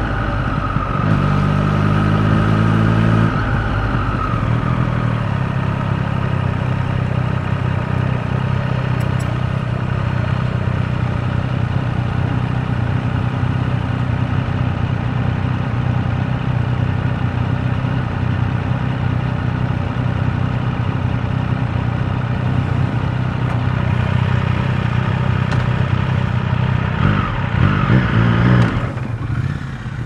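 Triumph Street Triple 765 RS's three-cylinder engine, heard from the rider's seat: the revs shift in the first few seconds as the bike slows, then it idles steadily at a stop, and it revs up again near the end as it pulls away.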